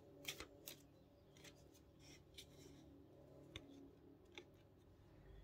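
Faint, scattered snaps and rustles of a deck of oracle cards being shuffled and handled, with a cluster of short clicks in the first second and sparser ones after.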